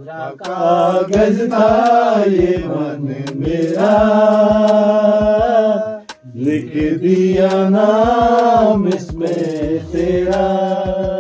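Men singing a song with long, drawn-out notes that bend in pitch, breaking off briefly about six seconds in.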